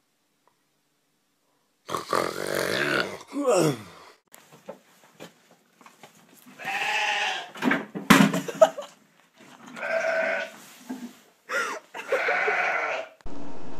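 Young goat bleating: a series of loud calls of about a second each with short pauses between, one falling sharply in pitch, starting about two seconds in.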